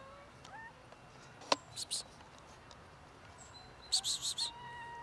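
Street cats meowing: a meow ends just as the sound begins, a short chirp follows, and near the end a long, level meow starts. Between them come a sharp click and a few brief high hissing sounds.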